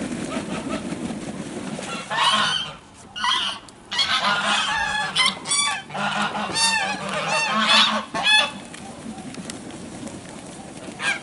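A flock of domestic geese honking, many loud overlapping calls starting about two seconds in and dying down after about eight seconds.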